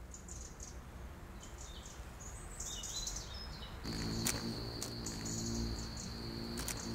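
Outdoor ambience of small birds chirping briefly. About four seconds in, a steady high insect trill like a cricket's starts and carries on, over a faint low hum.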